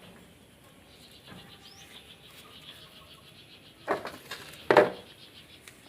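Steady, high-pitched chirring of insects, with two short loud sounds about four and five seconds in.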